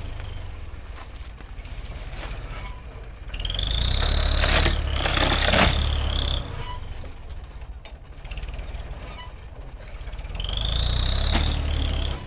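A motor engine runs under load with a low drone and revs up twice, each time with a rising high whine that is held for a couple of seconds and then drops away.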